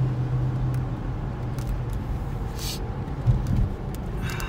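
Hemi V8 engine of a Dodge Challenger heard from inside the cabin, running steadily while the car is driven slowly; its low note is strongest in the first second. A thump about three seconds in.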